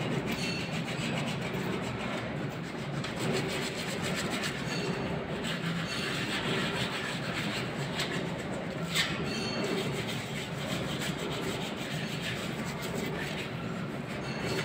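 Oil expeller (screw oil press) running: a steady mechanical rumble with a grinding, rubbing clatter, and one sharp click about nine seconds in.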